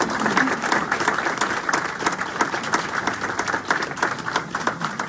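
A small crowd of people applauding: many hands clapping at once in a dense, steady patter.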